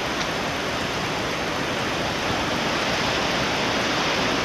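Steady, even hiss with nothing distinct in it.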